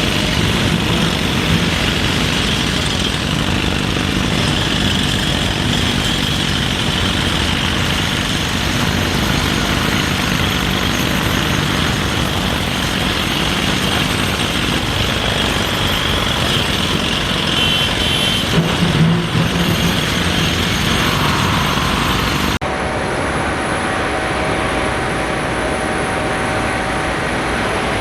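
Excavators' diesel engines running on a construction site: a steady mechanical engine noise. About three-quarters of the way through the sound changes abruptly to a different, steadier engine hum with a thin high whine.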